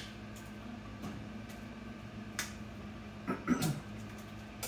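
Quiet kitchen room tone with a steady low hum, and a few soft clicks and taps as pieces of cooked chicken and rutabaga are laid by hand into a glass baking dish. A short murmur about three and a half seconds in.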